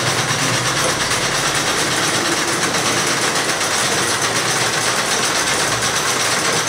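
Several cast-iron treadle sewing machines running at once, making a steady, fast mechanical clatter of needles and moving parts.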